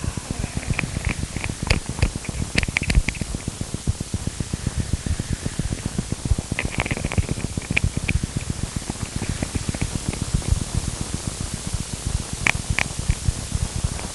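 Harsh experimental noise music: a dense, crackling low rumble of rapid pulses under a constant hiss, with sharp clicks and clusters of short high chirps breaking in about two to three seconds in, around seven seconds in, and again near twelve and a half seconds.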